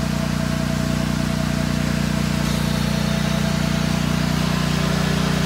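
Gasoline engine of a roof-cleaning pump rig running steadily under load, driving an AR-45 pump. About halfway through, the hiss of water spraying from the nozzle joins in.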